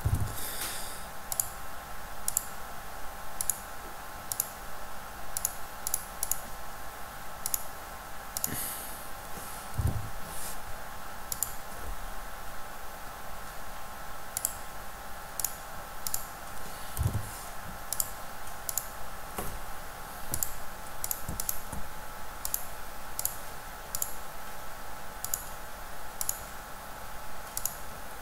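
Computer mouse clicks and a few keyboard keystrokes, short and irregularly spaced, many times over. A steady background hum runs underneath.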